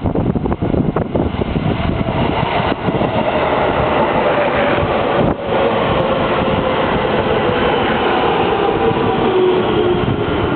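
JR Chuo Line electric train, a 313-series set with 211-series cars coupled behind, running in along the platform. There is a loud, steady rumble of wheels on rail, with rhythmic clatter in the first couple of seconds and a motor whine that falls in pitch near the end.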